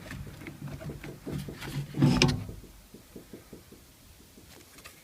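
Small clicks, knocks and rattles of hands working on parts inside a car door, with one louder knock about two seconds in and fainter ticks after.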